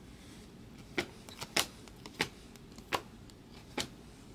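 Stiff chrome-finish trading cards being flipped one at a time off a stack held in the hands, each card making a short, sharp click, about six clicks at an irregular pace.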